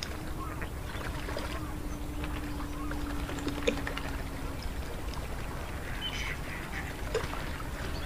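A flock of white domestic waterfowl calling, with short calls scattered throughout. A steady low hum runs underneath and stops about halfway through.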